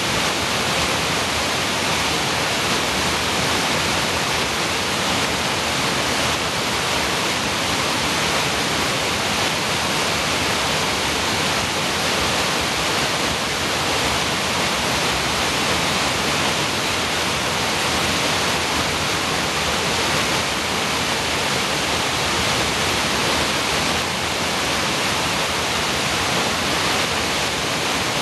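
Creek waterfall pouring down over rocks: a loud, steady rush of falling water with no change.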